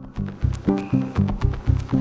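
Background music with a steady beat of about four pulses a second, starting suddenly.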